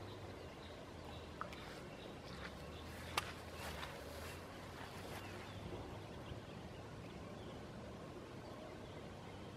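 Quiet lakeside outdoor ambience: faint bird chirps over a low steady hum, with a few light clicks and one sharper click about three seconds in.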